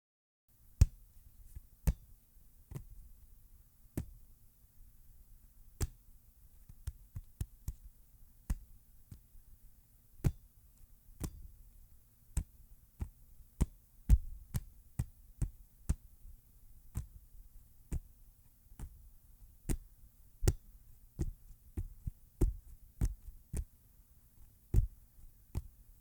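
A hand palming and slapping a football: sharp, irregular thuds, about one or two a second, over a faint low hum.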